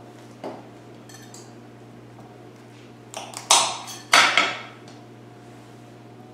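A kitchen knife cutting through stuffed celery stalks onto a plastic cutting board: a quick series of loud crunching chops about three to four and a half seconds in. A light knock and a faint rattle come earlier, over a steady low hum.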